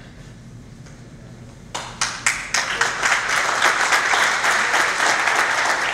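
Audience applause for an honoree called forward. It starts about two seconds in and swells into steady, dense clapping.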